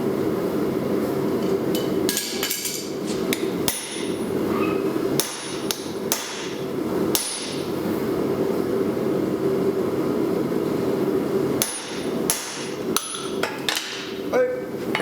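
Hammer blows on a punch driven into hot steel on an anvil, striking unevenly with a metallic ring, bunched in the first few seconds and again near the end. A steady rushing noise runs underneath.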